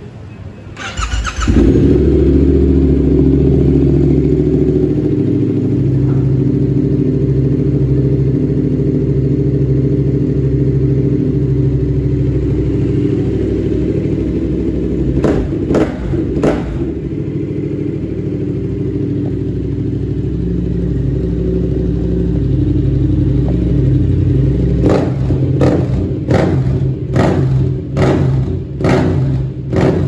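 Yamaha R7's 689 cc parallel-twin engine through an N1 Project full-system exhaust. It starts about a second in and settles into a steady idle, is revved briefly three times about halfway through, then is blipped again and again in quick succession near the end.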